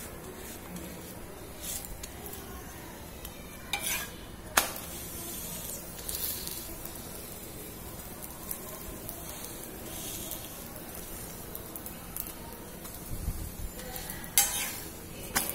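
A flatbread frying in ghee on a hot griddle, sizzling steadily. A steel spatula scrapes and taps against the griddle a few times, with the sharpest tap about four and a half seconds in and a couple more near the end.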